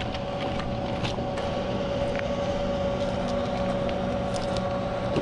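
Steady mechanical hum with a few held tones over an even rushing noise, from the big hydroelectric dam's powerhouse and water; a few faint crunches of footsteps on gravel.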